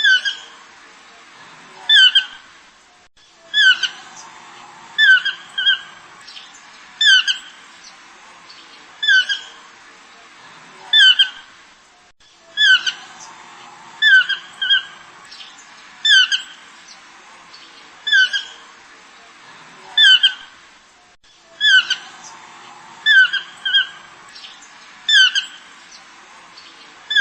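Short, high squawking animal calls, each a quick downward sweep, repeated about every two seconds and sometimes in quick pairs.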